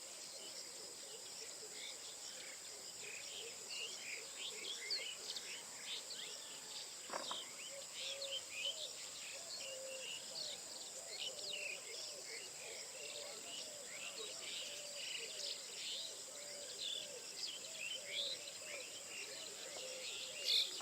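Many birds chirping, short quick notes overlapping, over a steady high insect drone. About a third of the way in, a lower repeated call joins and keeps going.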